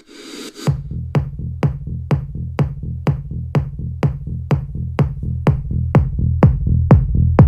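Techno music: a brief swell, then just under a second in a steady kick drum comes in, about two beats a second, each kick dropping in pitch over a held bass.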